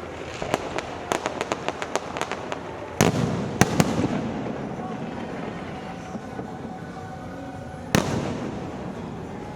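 Firecrackers and fireworks going off: a quick string of sharp cracks in the first few seconds, then three heavy bangs about three to four seconds in and another near the end, each trailing off in a rumbling echo.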